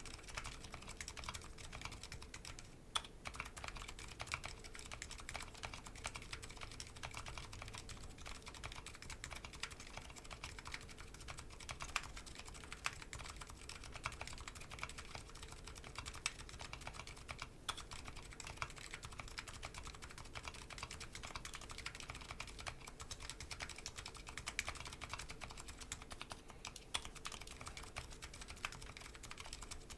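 Custom Nuxros Kraze keyboard with MetaKeebs MetaPulse electrocapacitive switches and DCS Sleeper keycaps, typed on continuously: a steady, fast run of keystroke clacks, with a few noticeably louder strikes.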